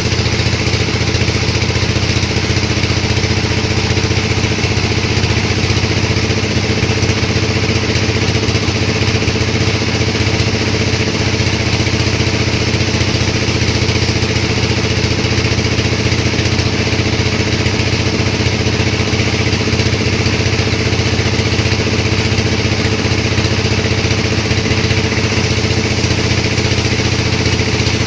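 Sawmill machinery running steadily with a constant, unchanging drone and hiss.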